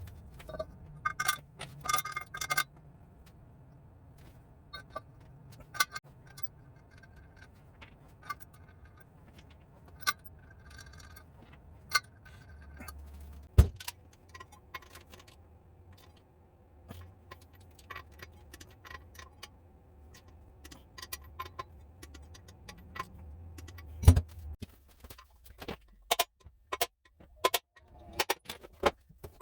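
Metal hand tools and parts clinking and clicking as they are handled, with two heavier knocks, one about halfway through and one a little before the end, over a faint low hum.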